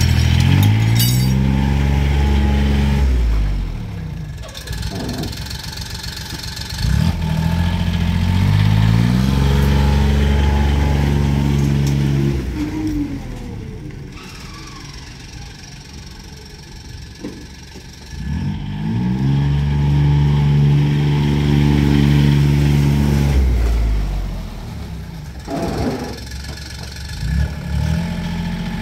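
The diesel engine of a 1997 John Deere Gator 6x4 utility vehicle running under way. Its note climbs three times as it speeds up and then holds steady. It grows fainter for a few seconds in the middle as the vehicle drives away, then louder again as it comes back.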